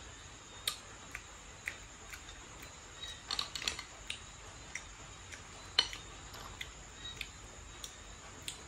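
Small sharp clicks and taps of grilled snail shells being handled and picked open with a small pick, scattered through, with a quick flurry of clicks a little after three seconds in and the loudest single click near six seconds.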